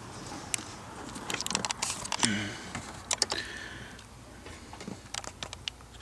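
Scattered light clicks and small rattles of hands working at a car's steering column around the ignition lock cylinder, with a key ring jangling, in three short clusters.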